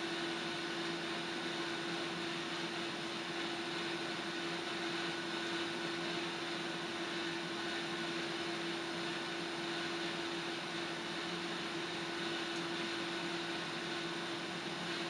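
Steady hiss of a gas stove burner heating water in a kettle, with a constant low tone running under it. The sound does not change.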